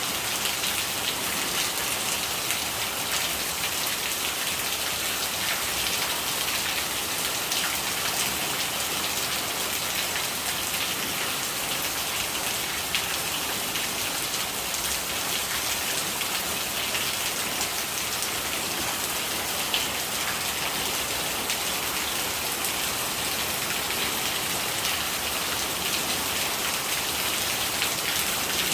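Steady rain, a dense patter of drops over an even hiss that holds unchanged throughout.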